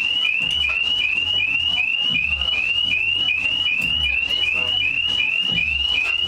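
A high squeaky chirp repeated evenly about three times a second, each chirp rising slightly in pitch, with faint low thumps underneath.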